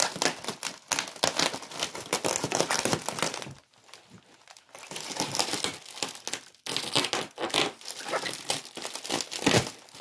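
Large sheet of plastic bubble-cushion packaging crinkling and crackling as it is handled and pulled about, pausing briefly about four seconds in.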